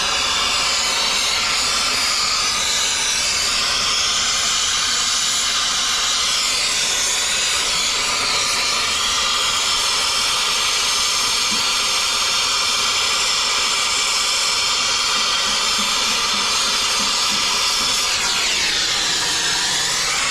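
Loud, steady hiss of gas escaping under pressure, starting abruptly and running on without a break. Near the end its tone sweeps down and back up.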